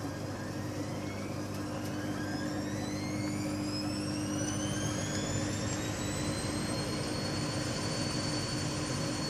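A machine whine that rises steadily in pitch for about six seconds, as if something is spinning up, then holds at a steady pitch, over a steady low hum.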